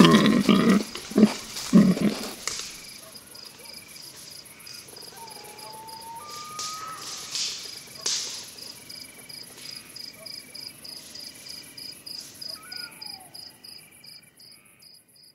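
Night-time forest ambience: crickets chirping in a steady pulsing rhythm, with a few loud crunching rustles in the first couple of seconds and a few short sliding calls mid-way.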